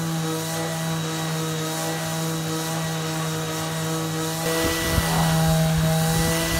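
Corded electric orbital sheet sander running with a steady motor hum as its pad is worked over the wooden canoe hull; the rubbing noise grows louder about four and a half seconds in.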